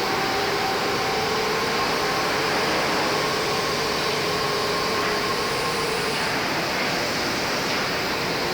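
IMEAS LCSI 190 two-head panel sanding machine running steadily, an even mechanical whir with a few faint steady hums.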